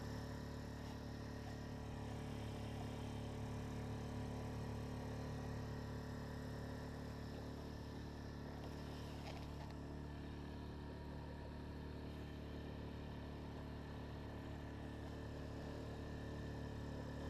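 Outboard motor of an inflatable boat running steadily at speed, a constant drone that neither rises nor falls.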